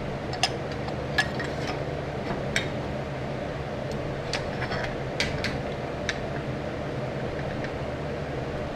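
Light metallic clinks and taps, irregularly spaced, as scrap-steel brace and bracket pieces are handled and fitted together, over a steady low hum.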